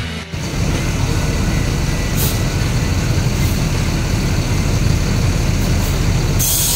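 A large diesel coach engine idling with a steady low rumble, a short hiss of air about two seconds in and a louder burst of air hiss near the end.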